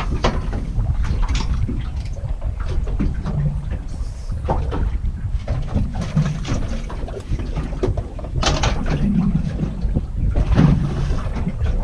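Wind rumbling on the microphone aboard a small fishing boat on open water, with scattered knocks and clatter from gear being handled, the loudest about two-thirds of the way through and again near the end.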